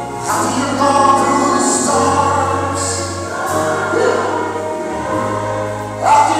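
Recorded gospel song playing, a choir singing over held bass notes that change every second or two.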